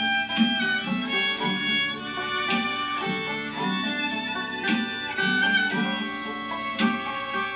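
A folk band playing an instrumental passage between verses: a fiddle leads the melody over a strummed guitar and a steady rhythmic accompaniment.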